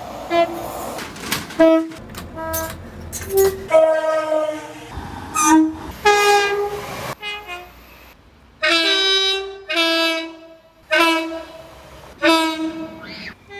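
Train horns sounding a rapid series of short blasts, many of them two-note high-low tones, with abrupt changes from one horn to the next. The clips are cut together, with brief gaps of rail noise in between.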